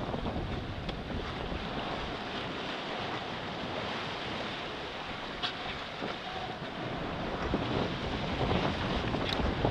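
Wind buffeting the microphone over the rush of sea water along a sailing yacht's hull as it sails through choppy waves, growing louder and more splashy in the last couple of seconds.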